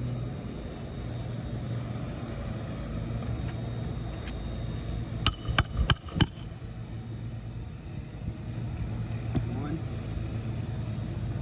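Four quick hammer strikes on a metal roofing nail, about five seconds in, driving it through the replacement asphalt shingle, each strike with a short metallic ring. A steady low hum runs underneath.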